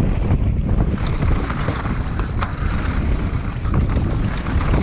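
Wind buffeting the microphone over the steady rumble of a mountain bike descending a rough dirt downhill track at speed, with a few sharp clicks and knocks from the bike.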